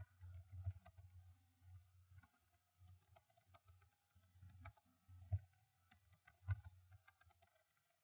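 Faint, irregular clicks of computer keyboard keys, picked up over a low steady hum.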